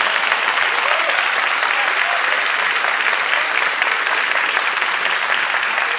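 A large audience applauding steadily, a dense wash of clapping hands that holds without a break.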